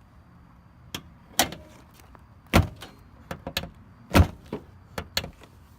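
Honda Accord's hood being shut after a latch adjustment: two heavy thuds about two and a half and four seconds in, with lighter metallic knocks and clicks around them.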